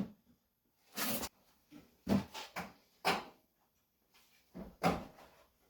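Four short bumps and rustles of handling in the work area, spread about a second apart, with quiet between them.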